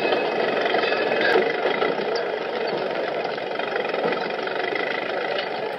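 Dubbed-in street sound: a motor vehicle engine running steadily amid traffic noise, with a murmur of voices behind it.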